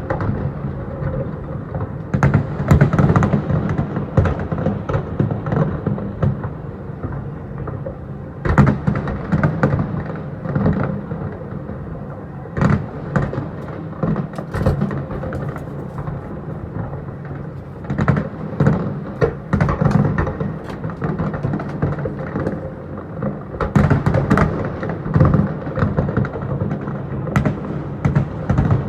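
Fireworks going off in rapid succession: a steady stream of booms and crackling reports over a low rumble, bunching into denser volleys several times.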